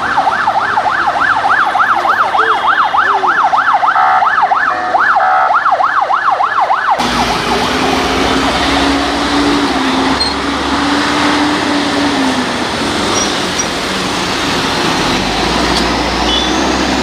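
A vehicle siren on a rapid yelp, sweeping up and down about four times a second, cuts off suddenly about seven seconds in. After that comes the steady drone of heavy vehicle engines and street traffic.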